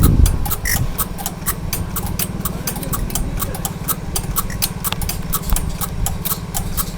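Band saw blade flash butt welding machine energising with a thump, then a steady low electrical buzz with irregular sharp crackling clicks, several a second.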